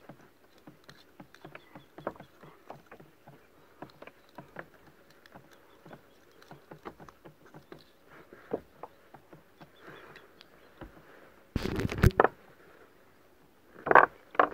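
Small irregular ticks and slaps of water against a kayak hull, with two loud knocking rustles near the end.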